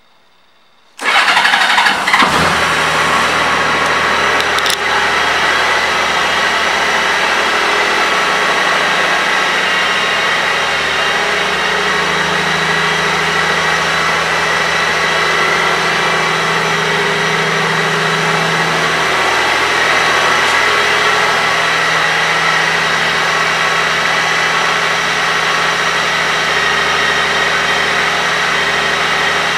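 A 2003 Honda Gold Wing's flat-six engine starts about a second in and settles into a steady idle.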